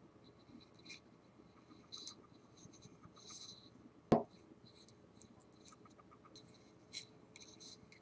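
Hands turning a dry, weathered wooden stick close to the microphone: faint scattered scratching and rubbing, with one sharp click a little past four seconds in.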